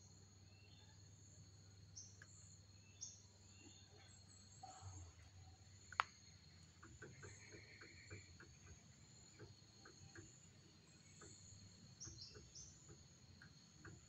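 Faint, steady high insect buzz with a few short, high bird chirps. A sharp click comes about six seconds in, followed by a run of soft ticks, two or three a second, for several seconds.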